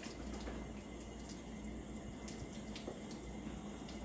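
Water running steadily from a tap into a sink, with a few faint clicks of scissors snipping.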